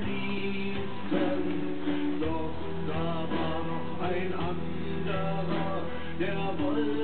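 Background music from a song.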